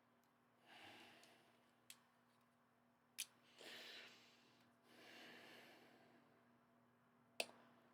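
Faint breaths or sighs, three of them, with a few short sharp clicks of the model's pieces being handled between them.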